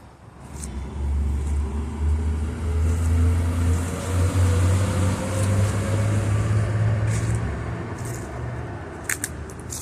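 A road vehicle going by, its engine rumble and road noise swelling and then easing off.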